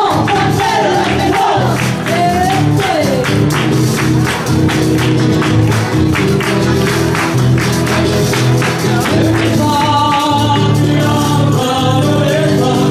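Live traditional Chilean folk music: voices singing over a fast, steady strummed and tambourine-shaken rhythm.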